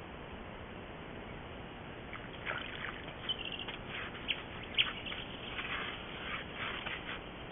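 Sambar stag drinking from a muddy puddle: a run of short, irregular wet lapping and slurping sounds that starts about two seconds in and stops shortly before the end.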